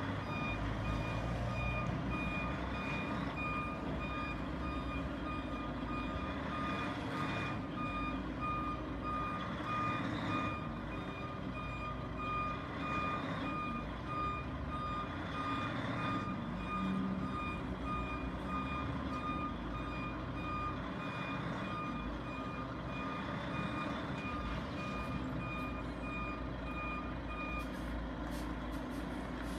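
A heavy truck's reversing alarm beeping over and over at an even pace while the truck's engine runs. The beeping stops about two seconds before the end, and the engine keeps running.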